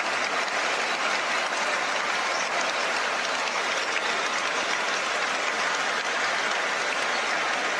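Stadium crowd cheering and applauding steadily in celebration of a goal just scored.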